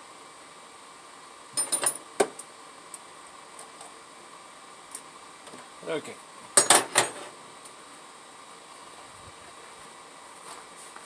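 Sharp metallic clinks and clicks of tools and small metal parts being handled, in two quick clusters: one about a second and a half in, and a louder one about seven seconds in. A faint steady hum runs underneath.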